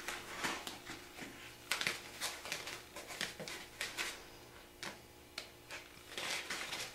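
Scattered small clicks and rustles of hands wrapping tape onto fishing line, with a quieter stretch after about four seconds.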